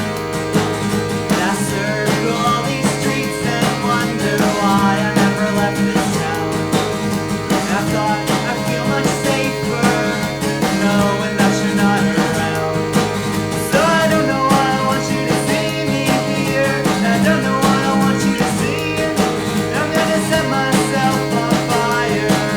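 A rock band's song playing: guitars over bass and drums with a steady beat.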